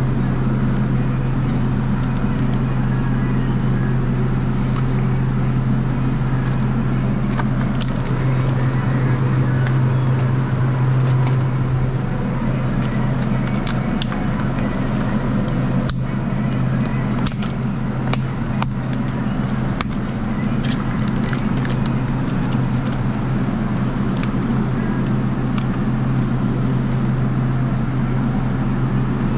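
Steady low hum of a dairy cooler's refrigeration machinery, with scattered light clicks and crackles of plastic egg cartons being handled, most of them about halfway through.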